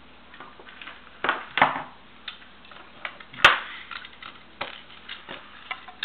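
Irregular clicks and taps of battery cells and their metal connecting tabs being handled on a workbench during soldering. The sharpest come about one and a half seconds in and again about three and a half seconds in.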